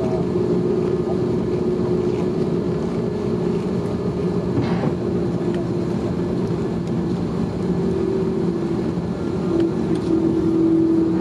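Airbus A330-303's General Electric CF6 jet engines heard from inside the cabin on the runway: a steady drone with a held hum, growing a little louder and the hum stronger about ten seconds in.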